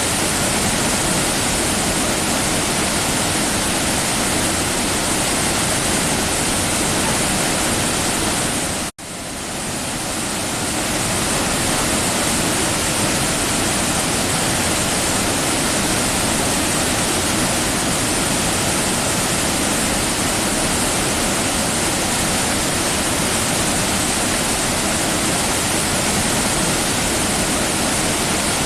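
Waterfall: a steady, loud rush of falling water. About nine seconds in it breaks off for an instant and swells back up over a second or two.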